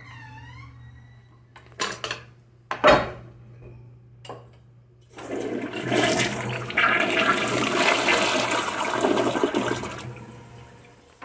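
A few sharp knocks, the loudest about three seconds in, then a tank-type toilet flushes: water rushes loudly for about five seconds and tapers off near the end.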